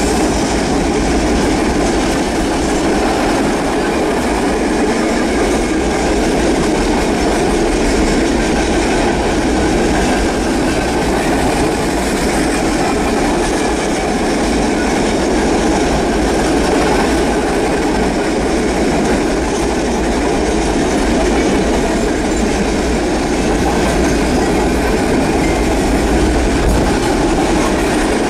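Norfolk Southern freight train's cars rolling past close by at speed, a loud, steady noise of wheels on rail that does not let up.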